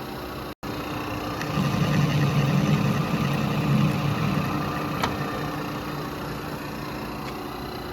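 Manual lathe running while a threading pass is taken, louder for about two seconds in the middle, with a single sharp click about five seconds in.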